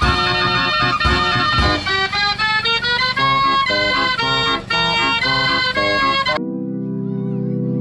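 Fair organ playing a lively tune of pipe notes over regular drum beats. About six seconds in, the tune gives way abruptly to steady held low notes.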